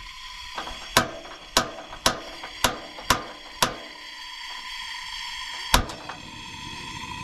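Seven sharp knocks: six in a steady series about half a second apart, then a single one about two seconds later, over a steady background tone.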